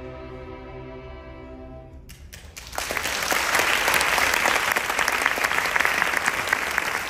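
A student string orchestra holds its final chord, which fades and stops about two seconds in. A few scattered claps follow, then loud audience applause from about three seconds in.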